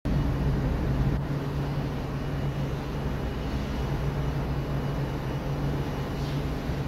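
Steady low drone of a large bulk carrier's engine and machinery, heard on deck as the ship gets under way out of port.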